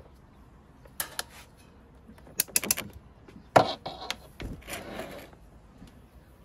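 Plastic control knobs on a Samsung electric fan's base being turned and clicked through their positions: a few sharp clicks, a quick cluster of clicks, one loud click, then a short scraping rasp.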